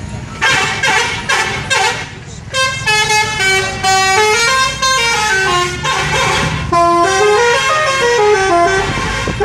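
Telolet multi-tone bus horn: a run of short blasts, then, from about two and a half seconds in, a tune of stepped notes rising and falling, over the low rumble of an engine.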